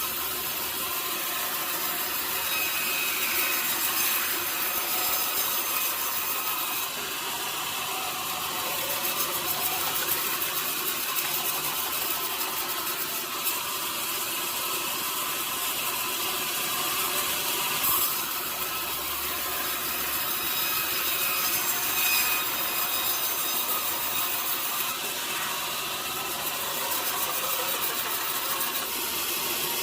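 A sawmill saw running steadily as it cuts through a mahogany log, a continuous sawing noise with a faint steady whine.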